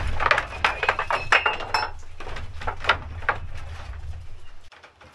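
Rapid clinking and clattering, like crockery and cutlery being knocked about, over a low steady rumble that drops away near the end.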